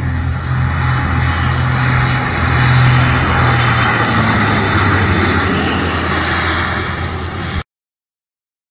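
Mitsubishi MU-2's twin Garrett TPE331 turboprops passing close by during the landing flare: a steady propeller drone with a high turbine whine that falls in pitch as the plane goes by, loudest about three seconds in. The sound cuts off suddenly about seven and a half seconds in.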